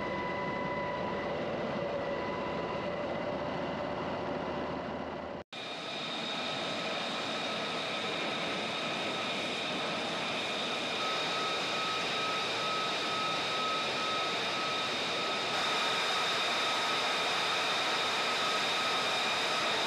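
Military jet engines running at idle: a steady rush with a high-pitched turbine whine. The sound cuts abruptly about five seconds in to a brighter, higher whine.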